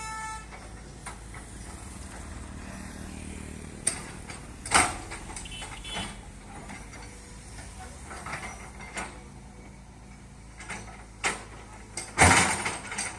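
Road-construction machinery running with a steady low hum, broken by irregular metallic clanks and knocks, the loudest near the end.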